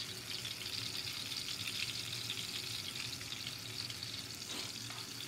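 Venison backstrap searing in an aluminium frying pan over a portable butane burner: a steady, fine crackling sizzle as the pepper crust forms.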